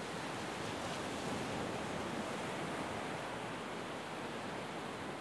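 North Sea surf breaking on a sandy beach, a steady, even rush of waves.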